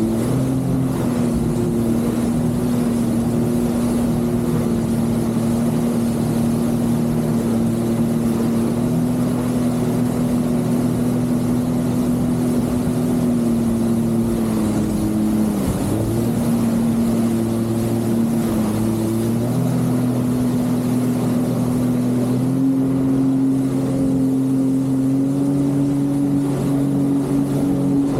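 Jet ski engine running at a steady cruising pitch under way on the water, with a brief dip in revs about halfway and a step up in revs a few seconds before the end.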